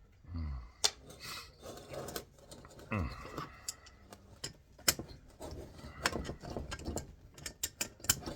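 Irregular metal clicks, clinks and a few sharp knocks of hand tools and loose hardware being handled while taking apart a large electrical receptacle.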